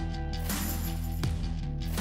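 Background music with a steady beat and sustained bass.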